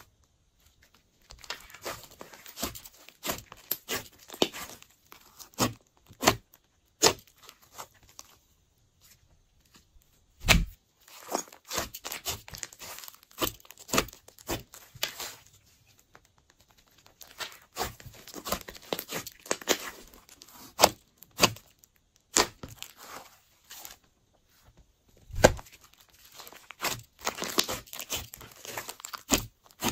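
Thick slime being squeezed, folded and pressed by hands: irregular sticky crackling and sharp pops as trapped air bursts through it. The sound comes in runs broken by short quiet pauses, with a few louder pops.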